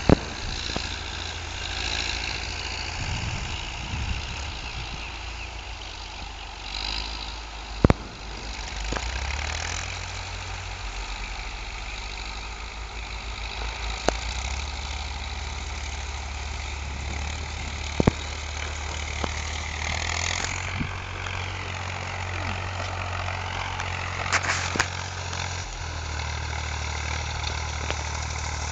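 Diesel tractor engines running steadily under load, pulling disc harrows across ploughed ground, with a shift in engine note about two-thirds of the way in. A few sharp clicks stand out, near the start, about a third of the way in and again past halfway.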